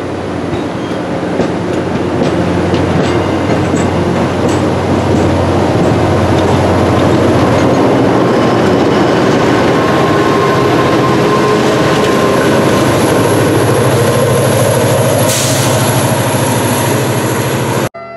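MBTA commuter train of bilevel coaches rolling past along a station platform: a steady rumble of steel wheels on rail with a few light clicks over rail joints. Under it runs a diesel locomotive's engine drone, which grows louder in the last few seconds before the sound cuts off suddenly.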